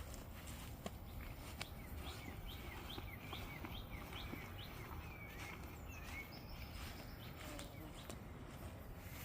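Faint outdoor ambience with a low rumble and scattered soft clicks. From about two seconds in, a bird repeats a short chirping call roughly twice a second for about four seconds.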